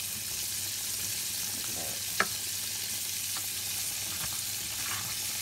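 Spatula stirring and scraping thick cheese grits in a metal saucepan over a steady high hiss, with one sharp tap against the pot about two seconds in.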